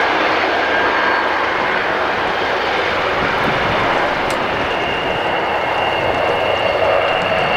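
Fixed-wing aircraft engine noise, loud and steady, with a thin high whine coming in about five seconds in.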